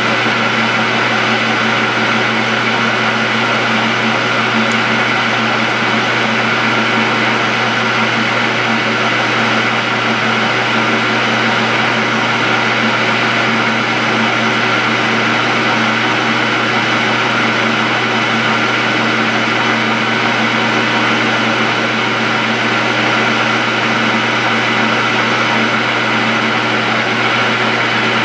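Metal lathe running steadily while a turning tool takes a cut along 12L14 steel bar stock, bringing it down toward piston size. A steady hum of several held tones over a noisy hiss, unchanging throughout.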